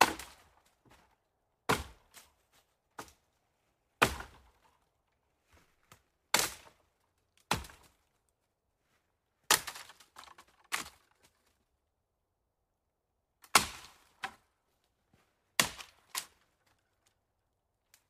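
Hiking footsteps on a forest floor: slow, uneven steps, each a sharp crunch, about a dozen of them with gaps of one to two seconds between.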